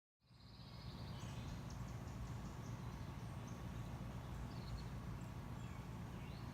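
Outdoor garden ambience that comes in just after the start: small birds chirping and trilling faintly over a steady low rumble.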